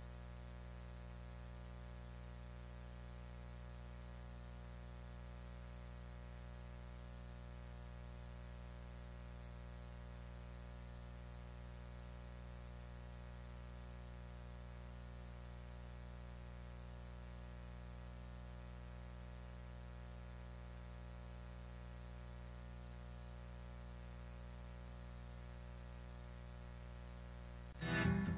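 Steady electrical mains hum with a faint hiss and nothing else; music starts abruptly just before the end.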